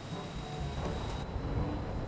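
Low rumbling engine noise with a thin, steady high whine over it; the rumble grows louder about half a second in.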